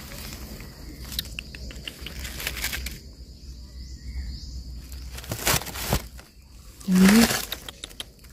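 Dry leaf litter rustling and crackling as mushrooms are picked and handled over a woven basket, with scattered clicks. Near the end comes the loudest sound, a brief low voice-like hum that rises in pitch.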